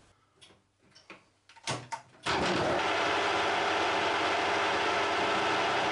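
A few faint clicks, then about two seconds in the steady running noise of a metal lathe comes in suddenly and holds. The lathe is spinning an off-centre cam blank in its chuck, ready to turn the offset cam surface.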